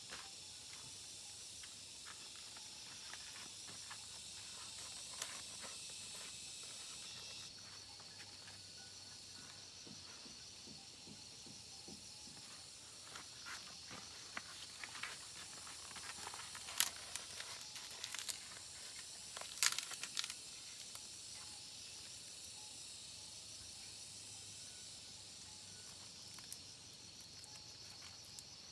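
Steady high-pitched chorus of insects, with crackling rustles and sharp crinkles of a broad green leaf being folded and wrapped by hand, loudest around the middle.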